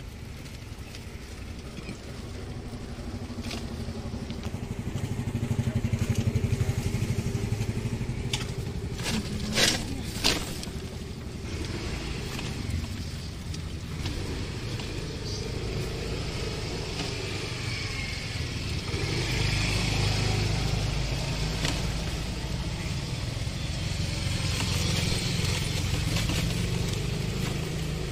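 Riding in a pedal-powered pedicab sidecar: a steady road rumble with motor traffic going by, louder at times. About ten seconds in, two short loud sharp sounds come close together.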